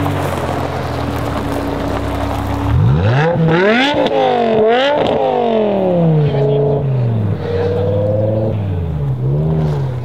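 A sports car engine idling steadily, then revved repeatedly from about three seconds in: quick rises and falls in pitch, a couple of held revs, and a short blip near the end.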